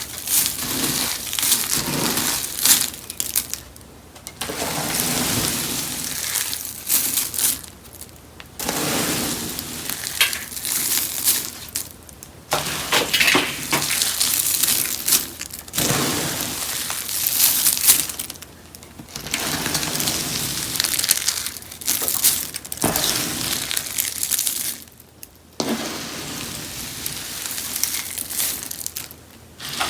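Rose soap being crushed, a dense crackling crunch in stretches of a few seconds with brief pauses between.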